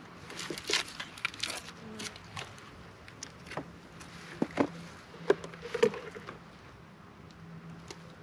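Wooden beehive boxes and frames being handled: scraping in the first couple of seconds, then a string of knocks and clunks as the upper hive box is set back down on the hive.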